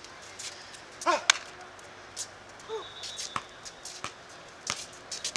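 A basketball bouncing on a hard court: irregular sharp knocks and slaps, with brief player shouts about a second in and again near three seconds.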